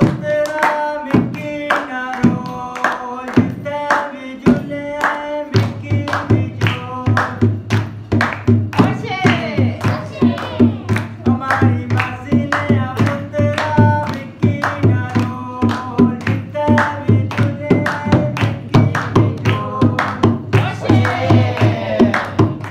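Singing with steady hand-clapping in time, about two to three claps a second. A low steady hum joins about five seconds in.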